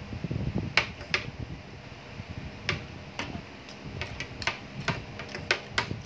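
Metal fork and spoon clinking against a ceramic plate, about eight sharp clinks at irregular spacing, with chewing and eating noises from close to the mouth in between.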